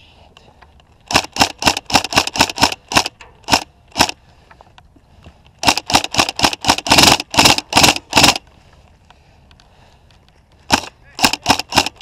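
Tokyo Marui High Cycle AUG airsoft electric gun firing rapid single shots as sharp cracks, in three strings. About a dozen irregular shots come first, then a faster, denser string in the middle, then half a dozen more near the end.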